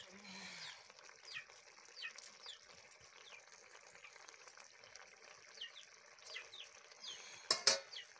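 Small birds chirping over and over, short high calls that drop in pitch, above a faint steady hiss. Near the end, a quick double knock, the loudest sound.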